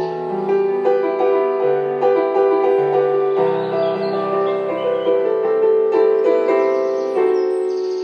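Piano music: a slow, gentle melody over held chords, the notes changing about every half second to a second.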